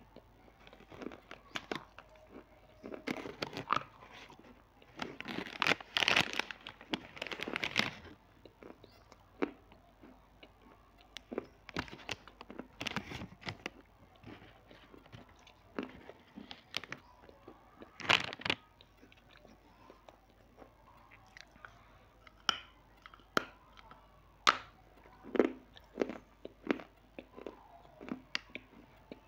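Close-miked biting, crunching and chewing of a crunchy snack: sharp cracks at irregular intervals, with a dense run of crunching from about three to eight seconds in.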